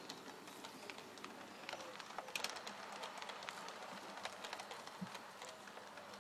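Model train coaches rolling along the track: a faint steady rattle with many small irregular clicks from the wheels.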